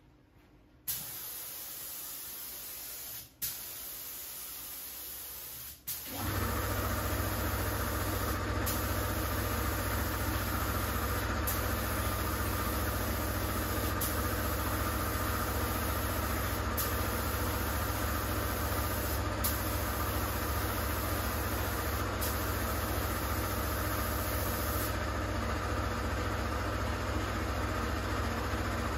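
Gravity-feed spray gun hissing as base coat is sprayed onto a car bonnet, in long passes with a brief break every few seconds when the trigger is released, stopping a few seconds before the end. About six seconds in, an air compressor starts and runs with a steady hum under the spraying.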